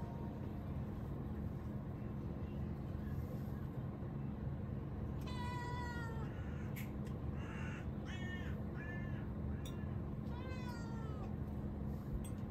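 An animal calling: a run of short cries, several falling in pitch, starting about halfway through, over a steady low background noise.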